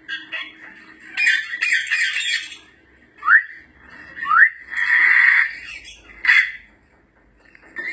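African grey parrots calling: a run of harsh, rasping squawks, then two short rising whistles, then a loud harsh squawk and one more short call, with a brief lull near the end.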